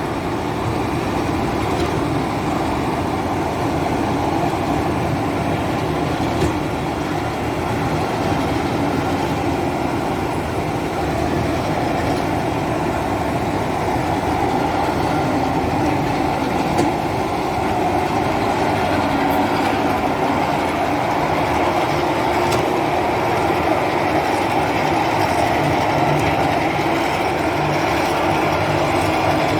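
QST3000D chain saw mounted on a Komatsu WB97S backhoe loader, running steadily along with the machine's engine for the whole stretch. The sound is an even mechanical clatter with no breaks.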